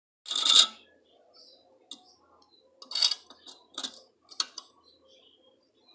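Metal hand tools being handled in a tool bucket: a short rattle, then four or five separate clicks and clinks spread over the next few seconds.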